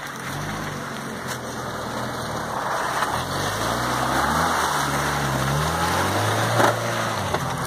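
Suzuki Vitara engine revving up and down as the 4x4 crawls through a muddy puddle, with the tyres squelching and splashing in the mud. It grows louder as it comes close and passes by near the end.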